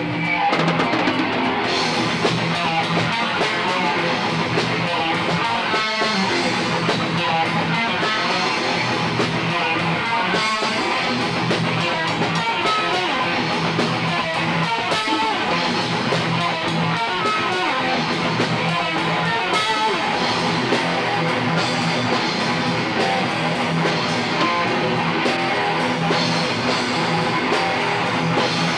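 A rock band playing loudly: two electric guitars with a drum kit's cymbals and drums, recorded live in a small room.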